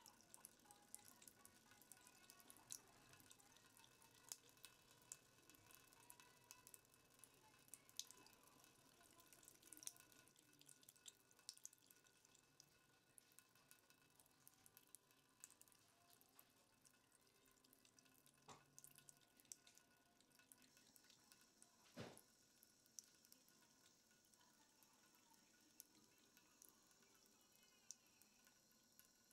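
Faint trickle of a thin stream of tap water running into a sink, with small irregular ticks and drips as a cat laps at the stream; one sharper tap about three-quarters of the way through.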